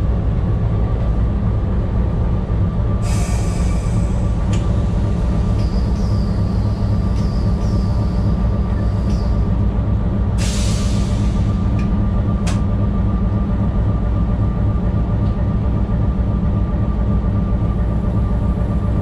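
Diesel locomotive running steadily, heard from inside the cab as a loud low drone. Two short hisses of air come about 3 and 10 seconds in, and a faint, wavering high squeal runs from about 6 to 9 seconds, along with a few sharp clicks.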